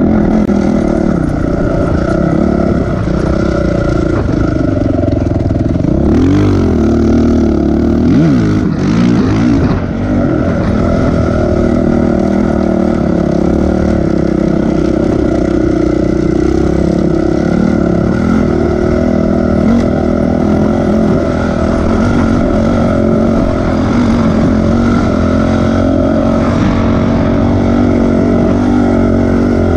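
Off-road vehicle's engine running hard while driving across sand dunes, revving up and down a few times between about six and ten seconds in, otherwise holding a steady pitch.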